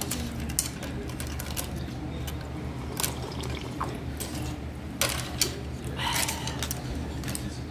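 Eating at the table: broth slurped from a bowl of noodle soup, with scattered sharp clicks of metal chopsticks against the bowl, over a low steady hum.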